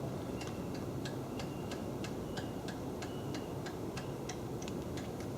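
Light, even ticking at about four clicks a second as the milling machine table is traversed by hand to run a dial indicator along the vise jaw.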